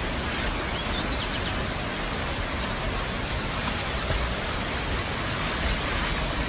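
A river in full flood rushing by: a steady, dense hiss of fast, muddy water.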